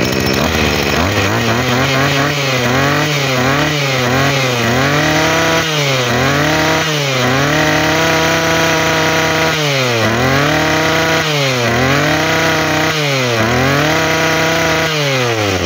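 Tanaka 22cc two-stroke brush cutter engine being test-run: it idles, then the throttle is blipped over and over so the revs climb and fall repeatedly, held high for a couple of seconds midway.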